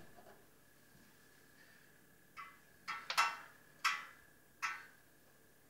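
About five short metallic clanks and rattles spread through the second half: an oven door and a metal loaf tin being handled as baked bread is taken out of the oven.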